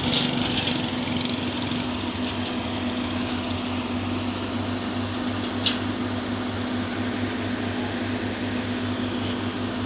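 Cat hydraulic excavator's diesel engine running steadily while it works its boom, a constant mechanical drone. A single brief sharp tick a little over halfway through.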